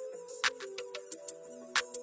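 Background electronic music: sustained synth notes that step between pitches, with sharp percussive hits, the loudest about half a second in and again near the end.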